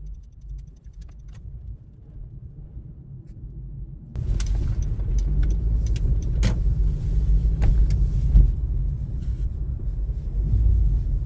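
Car driving, heard from inside the cabin: a steady low road rumble. About four seconds in it jumps abruptly louder, with scattered clicks and knocks over the rumble.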